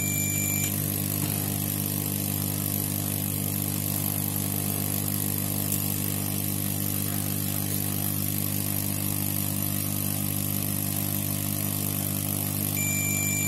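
Steady machine hum, several low pitches layered, with no change. A digital multimeter's continuity beep sounds briefly at the start and again near the end. At the start it marks a near-zero reading across the removed faulty protection diode, a sign that the diode is shorted.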